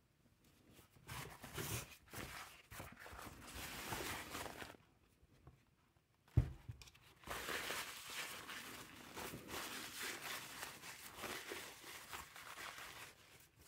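Paper towel rustling and crinkling as a wet agate snuff bottle is rubbed dry in it by hand, in two spells, with a single thump about halfway through as the bottle is set down on the towel on the table.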